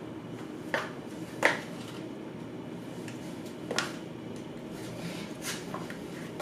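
A handful of short, light clinks over a steady low room hum, the loudest about a second and a half in.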